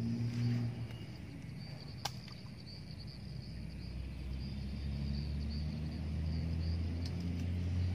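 Insects trilling steadily over a low, even motor hum that fades a little after the first second and builds back up, with a single sharp click about two seconds in.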